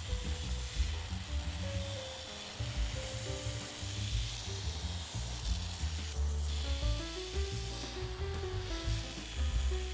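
Background music with a stepping melody and a heavy low beat, over the steady hiss of a CNC milling machine's end mill cutting a steel plate.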